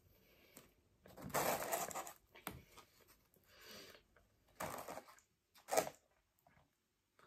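Cardboard pizza box rustling and scraping as a pizza slice is pulled free and lifted, with a short sharp sound near the end as the slice is dipped into a plastic tub of garlic dip.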